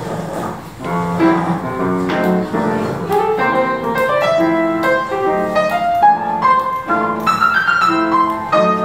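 Yamaha grand piano played solo in a jazz style, chords struck about once a second under a melody line that climbs higher toward the end.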